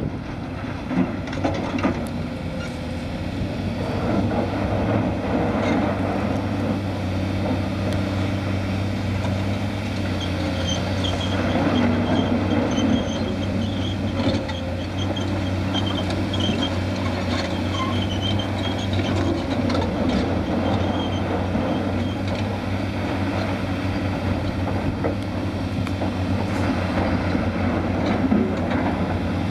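Diesel engine of a Caterpillar excavator running with a steady low drone, with rock clattering and scraping as its bucket works through riprap.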